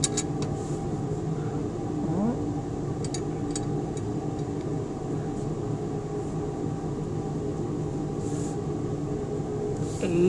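A steady low machine hum with several even tones. Over it come a few light metallic clicks: the small rider being slid along the beam of a triple beam balance, just at the start and again about three seconds in.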